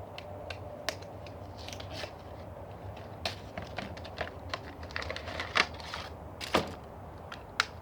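Plastic booster-pack packaging crinkling and small plastic HeroClix figures clicking as they are handled, a string of irregular sharp clicks and crackles with a few louder snaps.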